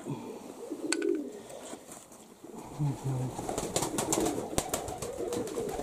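Domestic pigeons cooing in a loft: a few short, low coos. Scattered sharp clicks and knocks become frequent in the second half.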